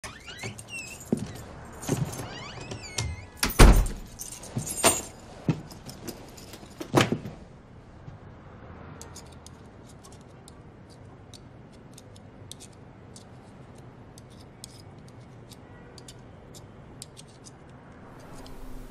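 Keys jangling and a door lock and door clicking and knocking as a front door is unlocked and opened, the loudest knock about three and a half seconds in. After about seven seconds this gives way to faint, light clicking of knitting needles, a few clicks a second.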